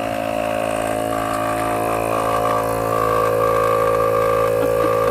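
A tire inflator or air compressor running with a steady motor hum while pumping up a leaking tire that has a nail in it.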